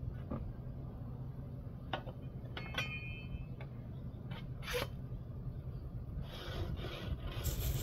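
A plastic stucco float scraping and rubbing: a few short scrapes and taps, a brief squeak about three seconds in, and a longer scrape near the end, over a steady low rumble.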